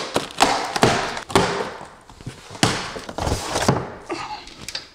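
Cardboard shipping box being opened: packing tape cut and pulled off, then a quick run of cardboard rustles, scrapes and dull thumps as the flaps and contents are handled and the plastic horn antenna is lifted out.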